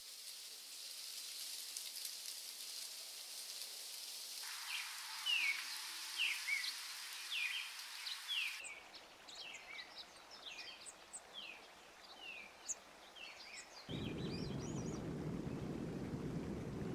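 Outdoor nature ambience in changing sections: a steady high hiss, then a bird's repeated short falling chirps from about four seconds in, a busier mix of quick high bird chirps from about nine seconds, and a steady rushing noise from about fourteen seconds.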